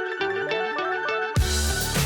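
Background music: a rising run of plucked notes builds up, then about a second and a half in the full beat drops in with heavy bass and drums.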